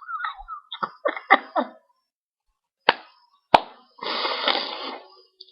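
A woman's short non-speech vocal sounds in quick bursts, then two sharp clicks, then a longer breathy sound near the end.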